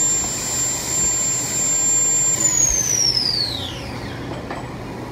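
A 2001 Haas VF-2 vertical machining center's spindle running at 10,000 RPM with a steady high whine. About two and a half seconds in, the whine falls in pitch and fades as the spindle spins down.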